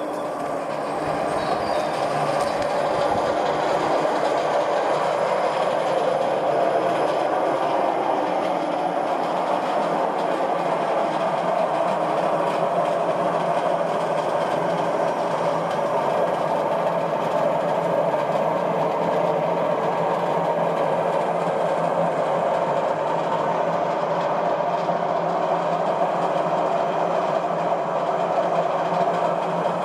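Hotpoint washing machine running with a loud, steady rough rumble from its drum. The noise grows over the first few seconds, then holds. It is the sign of worn drum bearings that need replacing.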